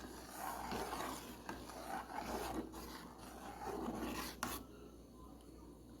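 A spoon stirring thick canjica (corn pudding) in a pot, scraping against the pot with a stroke about once a second as the mixture thickens. The stirring goes quiet near the end.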